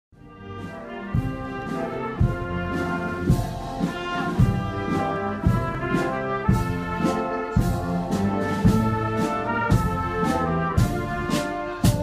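Processional brass music, sustained brass chords over a steady drum beat with a heavy stroke about once a second and lighter ones between, fading in over the first second.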